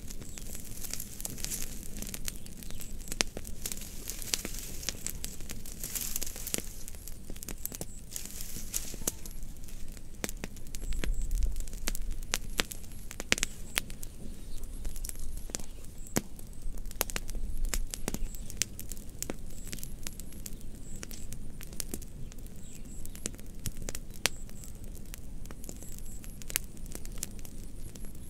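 Fire crackling, with many irregular sharp pops and snaps over a soft hiss. A low rumble rises briefly about eleven seconds in.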